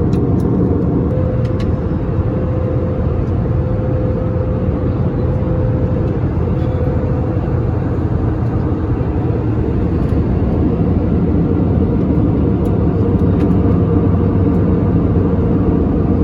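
Airbus A320neo cabin in flight: the steady drone of its Pratt & Whitney geared turbofan engines and the rush of air past the fuselage, with a faint steady hum underneath.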